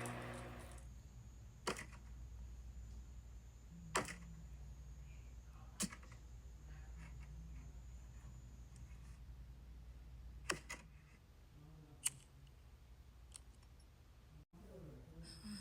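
Quiet room hum broken by a handful of sharp, isolated clicks, about six spread over fifteen seconds.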